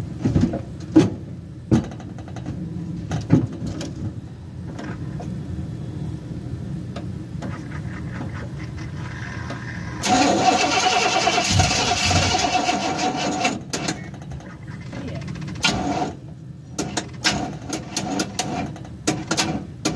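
Pickup truck starter cranking the engine for about three seconds without it catching, followed near the end by a run of rapid clicks from the starter, the sign of a battery too weak to turn it over. A few knocks come before the cranking.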